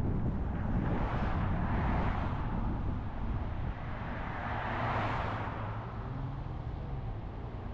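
Road and wind noise of a car driving at speed: a steady low tyre-and-engine rumble under a hiss, which swells louder about one to two seconds in and again about five seconds in, as traffic and wind gusts go by.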